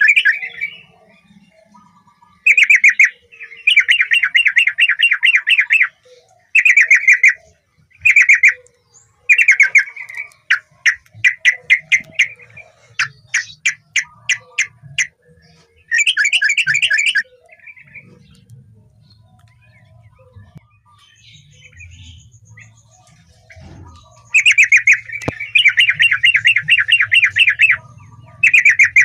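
Yellow-vented bulbul (trucukan) singing loudly in short, fast bubbling phrases of a second or two each. Around the middle it gives a run of separate sharp notes, then falls mostly silent for several seconds before the phrases resume near the end.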